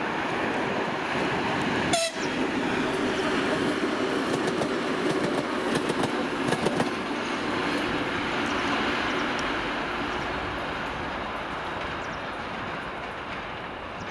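2TE116U twin-section diesel locomotive passing at speed: steady engine drone and rumble with wheels clicking over rail joints as it goes by, then fading as it moves away. A sharp click about two seconds in.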